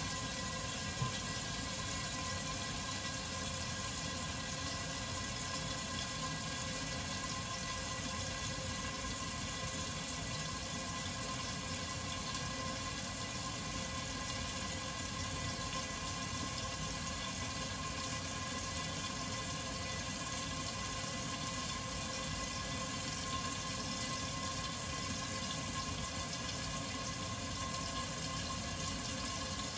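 Chicken pieces sizzling in olive oil under the lid of a covered frying pan, a steady hiss as the chicken cooks and browns, with a faint steady hum beneath it.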